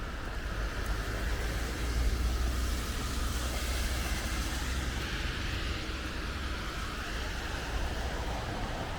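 Outdoor noise on a rainy walk: wind rumbling on the microphone under a steady wet hiss that swells for a few seconds in the middle and then eases.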